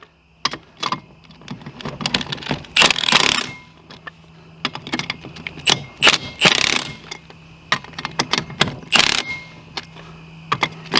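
Ratchet wrench clicking in quick runs as wheel lug nuts are tightened down in turn, with single metallic clicks and knocks between the runs and a faint steady hum underneath.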